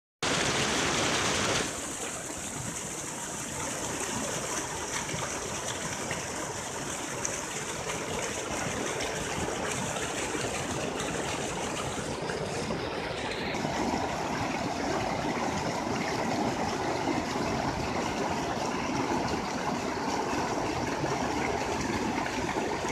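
Steady rush of flowing water in a canal, a little fuller from about halfway through.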